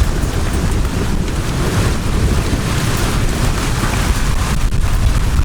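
Gusty storm wind buffeting the microphone in a steady loud rumble, with rain falling.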